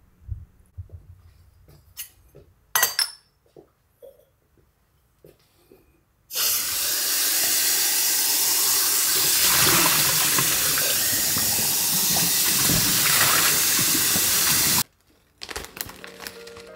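Kitchen faucet running full into a stainless steel cup held under it for about eight seconds, then stopping abruptly. Before it, a few light clinks and knocks.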